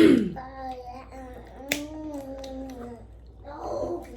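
A small child's voice making one long, drawn-out vocal sound of about two and a half seconds, then a shorter one near the end, with a few light clicks in between.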